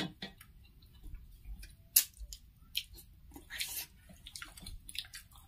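Close-miked eating by hand: fingers squishing rice into chicken gravy, with wet mouth clicks and chewing, as a scatter of short sounds. The sharpest click comes about two seconds in.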